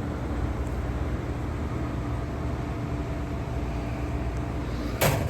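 Steady low rumble with a faint hum through it, and one short sharp knock about five seconds in.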